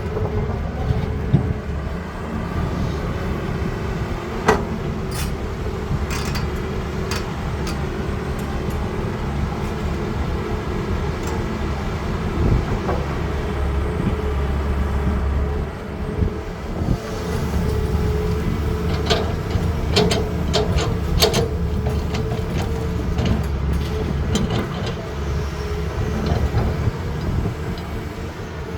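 CAT 320D excavator's diesel engine running steadily under working load, with a low hum and a held whine from the hydraulics. Sharp knocks and clanks come about five seconds in and again in a cluster about twenty seconds in.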